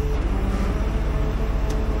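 Heavy tow truck's diesel engine running steadily, a low hum with a faint whine over it. A small click near the end.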